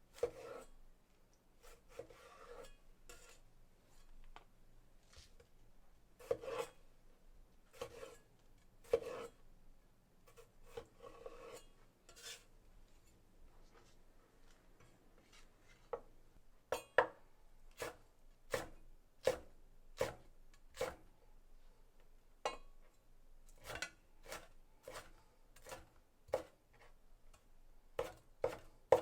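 Kitchen food preparation: rubbing and scraping sounds, then from about halfway a run of single sharp chopping strikes on a cutting board, roughly one a second.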